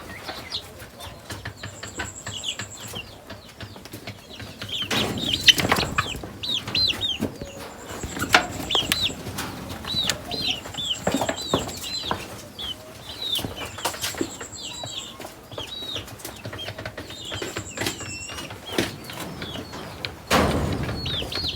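A flock of seven-week-old chickens peeping and clucking in many short high calls, with brief bursts of wing flapping about five seconds in and again near the end.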